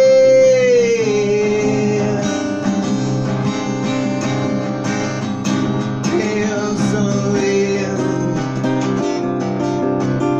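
Acoustic guitar strummed with a pick under a man's long held sung note, which slides down in pitch about a second in. The guitar then carries on alone, its strumming getting busier toward the end.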